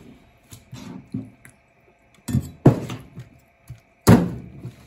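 Chinese cleaver chopping through yellowtail head pieces on a plastic cutting board: a few light knocks in the first second, then heavy chops about two and a half seconds in and again near four seconds.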